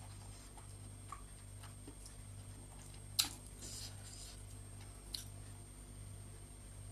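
Quiet hand-eating sounds: fingers working rice and chicken on a plate, with a few sharp clicks, the loudest about three seconds in and a smaller one about two seconds later, over a steady low hum.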